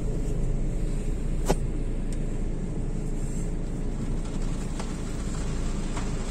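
Car engine running steadily, heard from inside the cabin as the car slowly pulls away, with one sharp click about a second and a half in.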